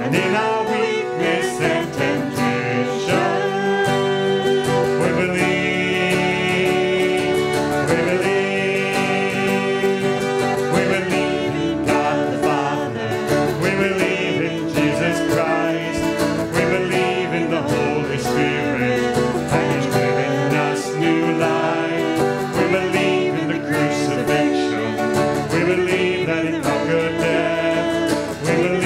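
Live worship song: a strummed acoustic guitar with a woman and a man singing.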